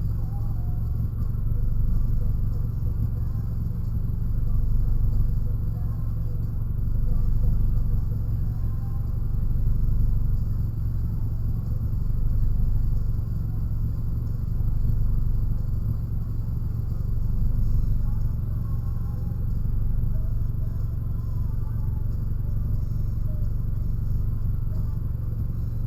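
A motor vehicle's engine running with a steady low rumble, swelling and easing slightly every couple of seconds.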